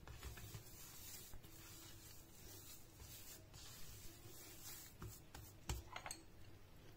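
Faint rubbing and squishing of hands kneading soft cocoa shortbread dough on a glazed clay plate, with a few soft taps near the end.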